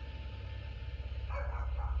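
A dog barks twice in quick succession, over a steady low hum.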